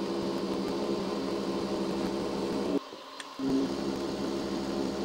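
Milling machine with an insert face mill taking a facing cut across a steel block: a steady machining drone that dips briefly about three seconds in, then resumes.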